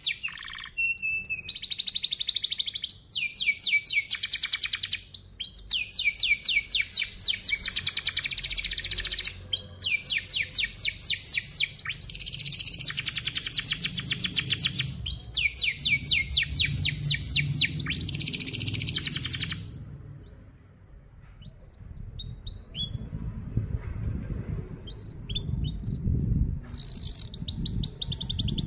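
Domestic canary singing long, tight rolls: fast trills of rapidly repeated high notes. About twenty seconds in the rolling breaks off for a few seconds of scattered short chirps, then starts again near the end.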